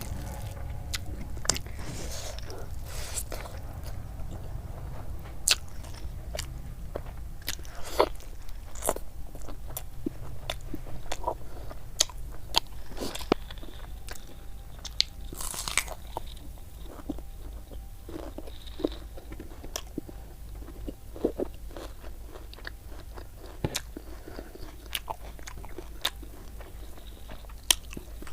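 Close-up eating sounds: a person chewing and biting, with many sharp crisp crunches and mouth clicks at irregular intervals.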